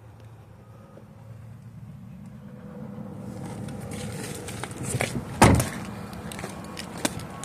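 A car door shut with one loud, heavy thump about five and a half seconds in, preceded by rustling and handling noise and followed by a few light clicks.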